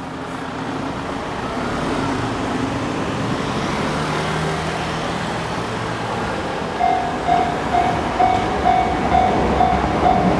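Steady road traffic noise at a level crossing. About seven seconds in, the crossing's warning bell starts ringing, about two strikes a second, the signal that a train is approaching.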